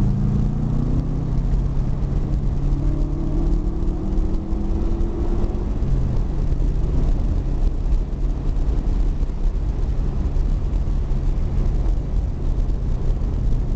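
Car engine running at a steady parade-lap pace, heard from inside the cabin over a heavy road and wind rumble. The engine note climbs slowly a few seconds in, drops just before the middle, then holds steady.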